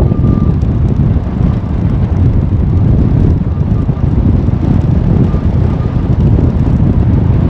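1983 Volkswagen Kombi van driving over a rough gravel road: a loud, uneven rumble.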